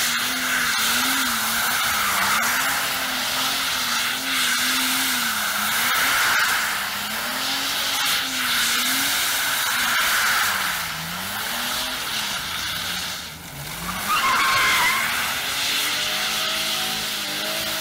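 BMW Z3 2.8's straight-six engine revving up and down over and over while its rear tyres squeal and skid on wet tarmac in a drift, with a sharp squeal about 14 seconds in.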